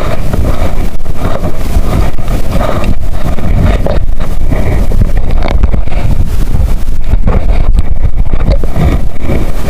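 Wind buffeting the microphone out on open water: a loud, steady low rumble.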